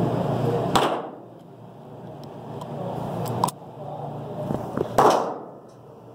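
Gunshots on an indoor range: a loud shot about a second in and a louder one about five seconds in, with a fainter sharp crack in between. After each shot the steady background drops out and slowly returns.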